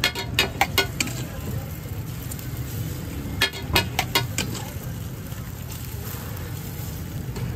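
Metal utensils clanking and scraping on a flat steel griddle at a street-food stall, with a quick run of sharp strikes in the first second and a few more about three and a half seconds in, over a steady low hum.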